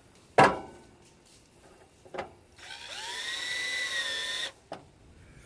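Power drill-driver spinning up and running steadily for about two seconds, driving a screw back into the unit, then stopping abruptly. Before it come two sharp knocks, the first one the loudest sound.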